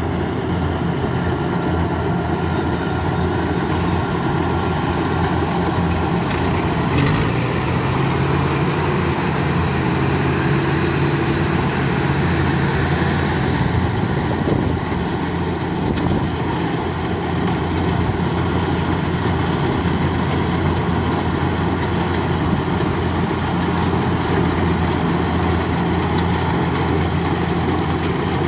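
Kubota rice combine harvester running steadily as it cuts rice, its diesel engine giving a continuous heavy hum. An extra higher tone joins in for several seconds in the first half, then drops away.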